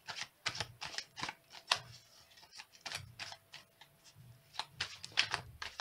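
Oracle cards being shuffled and handled: a run of quick, irregular slaps and swishes of card against card.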